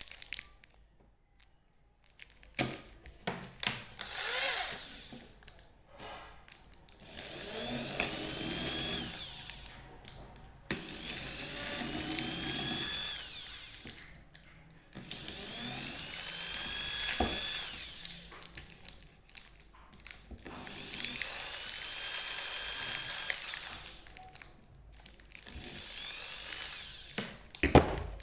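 Electric drill drilling holes into chocolate, running in about six separate bursts of two to three seconds, each with a whine that rises and then falls as the bit spins up and slows.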